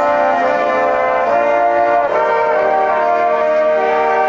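Youth marching band's brass section, sousaphones among the horns, playing loud sustained chords that change every second or so.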